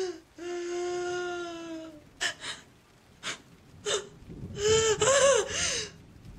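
A woman wailing and sobbing without words: a long held wail, then a few sharp gasping breaths, then a wavering sob near the end.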